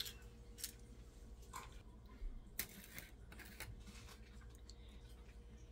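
Quiet kitchen with a faint steady hum and a few faint, scattered clicks and taps as eggshells and a vanilla bottle are handled over a stainless steel mixing bowl.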